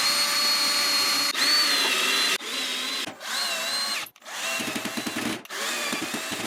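Cordless drill-driver driving screws, in about six short runs with brief stops between. Its whine wavers up and down in pitch as the load changes.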